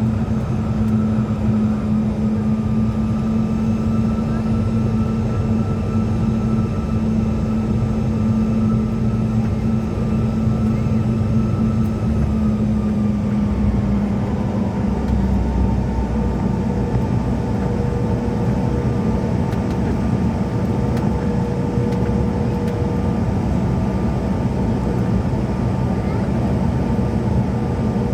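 Cabin noise of a CRJ-700 regional jet under high power: its rear-mounted turbofans run with a steady roar and a steady hum and whine, which both drop slightly in pitch about halfway through.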